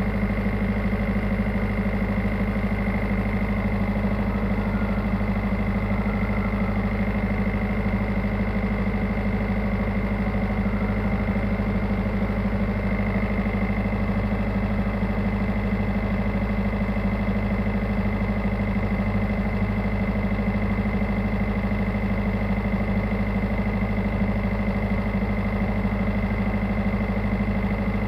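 Tugboat's diesel engine running steadily at constant speed, with a thin steady high whine above the engine note.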